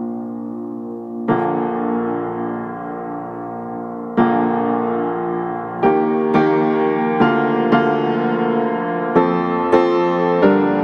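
Background piano music: slow held chords that become quicker, more frequent notes in the second half.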